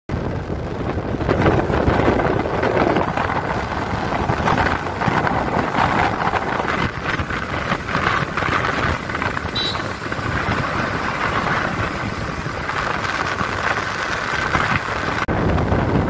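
Wind rushing over the microphone of a phone on a moving motorbike or scooter, a steady dense rush with the vehicle's running noise underneath. It breaks off briefly near the end.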